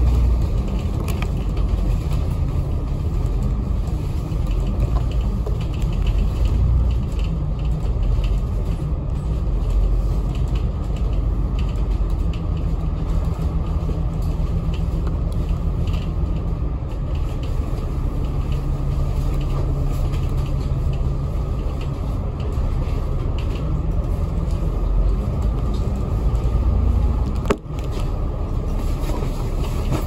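Cabin noise aboard a double-decker bus under way: a low engine rumble with a steady hum that shifts in pitch now and then, and light creaks and rattles from the body.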